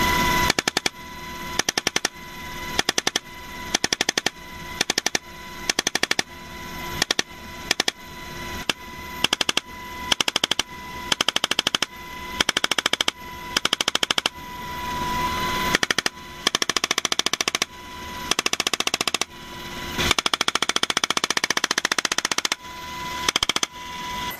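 Helicopter door-mounted machine gun firing short bursts of rapid fire, about one burst a second, with one longer burst about twenty seconds in.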